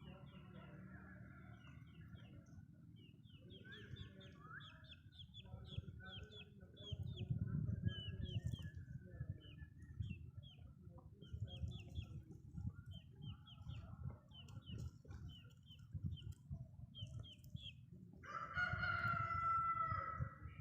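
Backyard chickens clucking and chirping, with a rooster crowing once near the end, lasting a couple of seconds.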